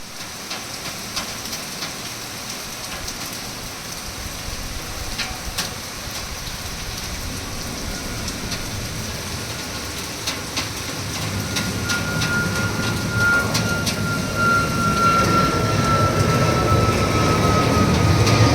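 Steady rainfall with scattered drop clicks. From about halfway, an aeroplane's low rumble grows louder, joined by a high whine that slowly falls in pitch near the end.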